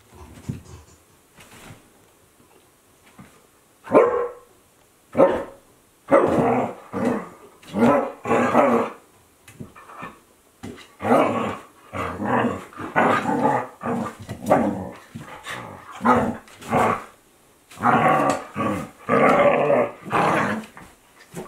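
Two Akita Inu dogs, a young adult and a puppy, growling and barking at each other in play. The sounds come in a quick run of short bursts, starting about four seconds in.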